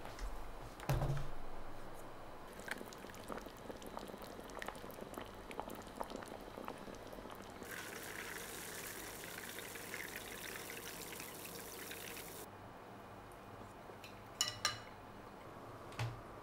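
Serving oden from a clay pot: small clinks and taps of a metal ladle and chopsticks, with a louder knock about a second in and two sharp clicks near the end. In the middle, broth pours steadily for about five seconds, starting and stopping abruptly.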